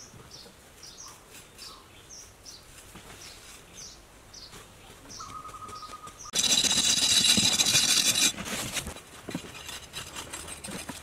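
Tropical forest ambience: a bird repeats short, high, falling chirps about twice a second. About six seconds in, a loud, high, insect-like buzz starts suddenly and cuts off two seconds later.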